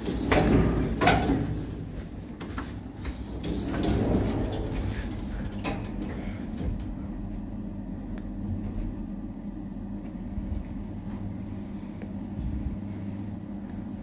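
Passenger lift's automatic sliding doors closing with a few clunks in the first second or so, then the car travelling with a steady low drive hum.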